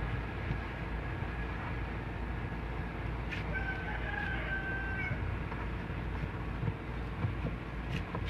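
A rooster crowing once, about three and a half seconds in: one drawn-out call that steps up in pitch near its end, over a steady low hum.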